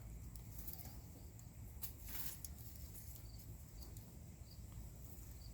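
Quiet garden ambience: a few faint, short, high insect chirps over a low rumble, with a brief rustle of plants being handled about two seconds in.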